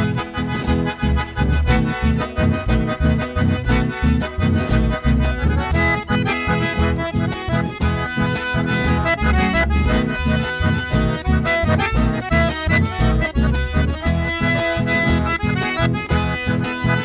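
Chamamé played live, with the piano accordion carrying the melody over a steadily pulsing electric bass line. No singing.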